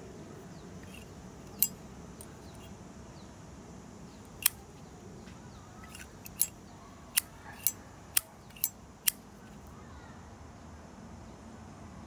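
Sterling silver Zippo lighter's hinged lid flipped open and snapped shut, about eight sharp metallic clicks, spaced out at first and coming faster in the second half.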